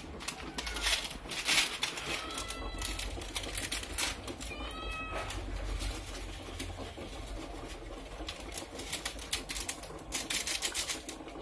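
Two short animal calls, about two and a half and five seconds in, the second rising in pitch, over faint crackling and a steady low hum.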